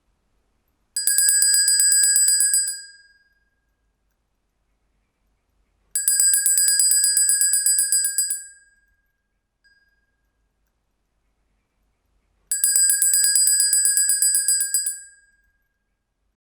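A handbell shaken rapidly, ringing in three bursts of about two seconds each, a few seconds apart, each fading out: the alarm marking the end of a five-minute timer.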